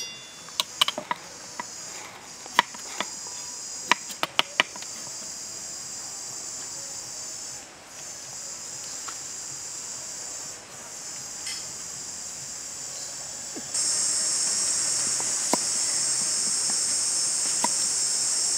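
Steady high-pitched chorus of insects, stepping up louder about two-thirds of the way through. Over it, a quick run of sharp clicks in the first few seconds and a couple more near the end from a knife cutting a carrot.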